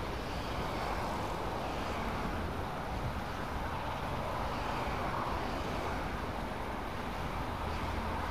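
Steady rush of a shallow stream flowing over rocks, with a low rumble of wind on the microphone.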